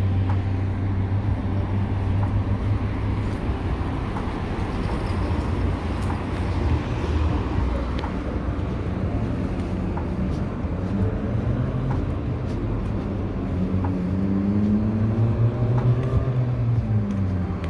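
Street traffic: road vehicles running past with a steady low engine hum and tyre noise. In the last few seconds, one engine's pitch shifts as it changes speed.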